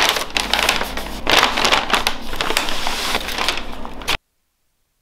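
Brown kraft paper bags rustling and crinkling as they are folded shut by hand, cutting off abruptly about four seconds in.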